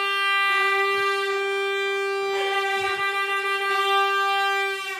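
One long, steady note blown on a horn, held for about five seconds and stopping near the end.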